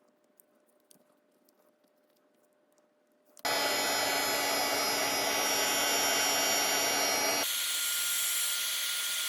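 Electric hot-air heat gun switched on about three and a half seconds in, blowing steadily with a fan-motor whine, used to shrink a heat-shrink tube label. About seven and a half seconds in its sound thins out, losing its low rumble.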